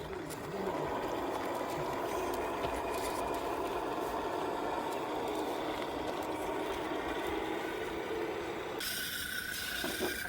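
RC crawler's electric motor and gearbox whirring steadily as it drives. The whir cuts off abruptly near the end, and a different, higher steady whine takes over.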